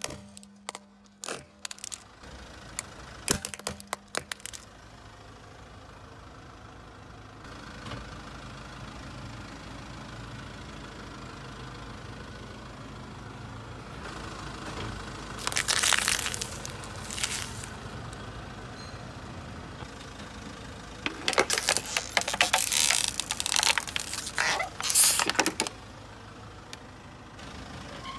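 A car tyre rolling slowly over small objects and crushing them, with a car engine running quietly underneath. Sharp plastic cracks come in the first few seconds as a plastic toy breaks. Short crackling bursts follow about halfway, as wax birthday candles snap, and a longer, denser run of crunching comes near the end.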